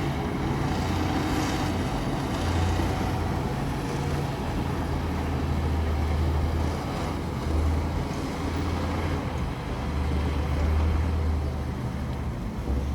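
Heavy diesel engine of a bulldozer running steadily at work, a low drone that wavers a little in strength.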